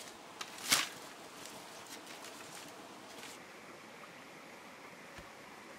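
A bundle of dry firewood branches dropped on the forest floor, landing with one short loud clatter about a second in, followed by light crackling and rustling of twigs.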